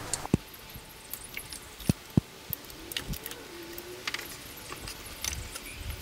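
Sharp plastic clicks and light rattling as electrical connectors are pushed onto the fuel injectors and the fuel rail is handled: a few separate snaps, the strongest about half a second and two seconds in.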